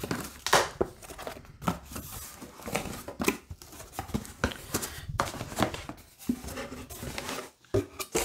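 Corrugated cardboard shipping box being torn open along its perforated tear strip: a run of short rips, scrapes and knocks of cardboard as the flaps are pulled back and the inner box is slid out.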